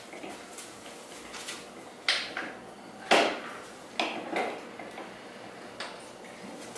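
A handful of sharp metallic clinks and clanks from hand tools and parts being handled at a motorcycle's front wheel and fork bottoms, irregularly spaced, the loudest about three seconds in.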